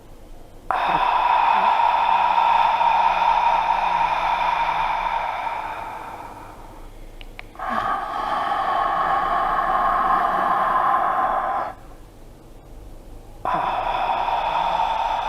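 Slow Ujjayi breathing through a slightly open mouth with the throat narrowed, giving a steady rushing breath sound like a slight snore. There are three long breaths of several seconds each, with short pauses between.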